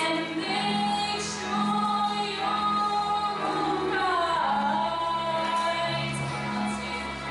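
A girl singing solo into a microphone in long held notes, with a downward slide in pitch about four seconds in, over steady low instrumental backing notes.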